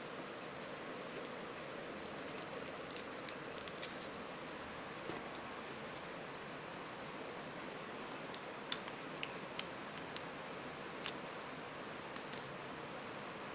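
Scissors snipping the corners off a stiff plastic OHP transparency sheet: scattered short, sharp clicks over a steady background hiss.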